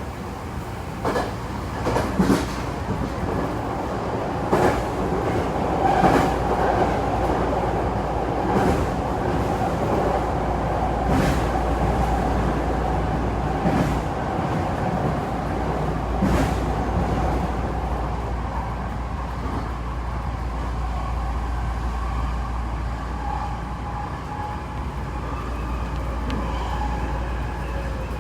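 Tokyo Metro 7000 series train running at speed, heard from inside the car: a steady rumble and hum, with the wheels clacking over rail joints every two to three seconds. The clacks thin out in the last third.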